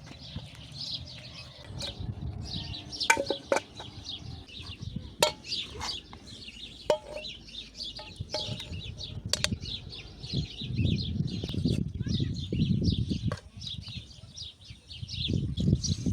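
Small birds chirping in a continuous dense chorus. Several sharp clicks or knocks come in the first half, and bursts of low rumbling noise follow later on.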